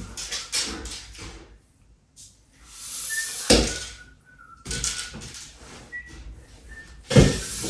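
Someone rummaging and handling things, with a cupboard-like knock about three and a half seconds in and a louder knock near the end.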